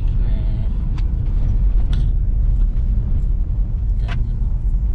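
Car driving, heard from inside the cabin: a steady low rumble of engine and road noise, with a few short clicks or rattles.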